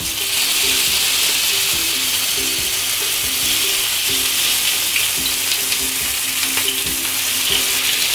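Oil sizzling in a shallow nonstick tawa as leaf-wrapped prawn parcels fry over a low gas flame, with a few light taps as the parcels are set down in the pan.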